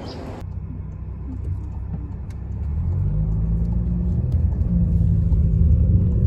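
Inside a moving car: low engine and road rumble in the cabin, growing louder from about halfway through as the car gets under way.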